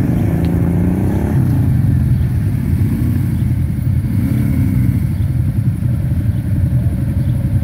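Quad bike (ATV) engines running in a group, with a steady low rumble. One engine revs up and drops back in the first second and a half, and revs briefly again around four seconds in.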